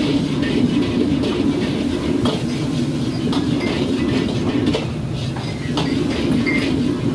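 Wok stir-frying: a metal ladle scraping and clanking against a wok about once a second over the steady roar of the wok burner and kitchen extraction.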